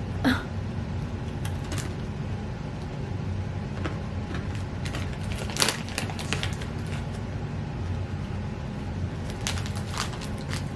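Someone chewing crunchy mini peanut butter-filled pretzel nuggets: scattered crisp crunches and mouth clicks over a steady low hum.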